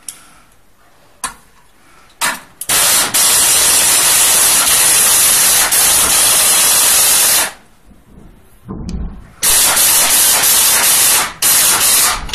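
Pneumatic screwdriver running with a loud hiss of exhaust air, driving fasteners into a chair's steel bracket: a few short trigger blips, then one long run of about five seconds and two shorter runs near the end.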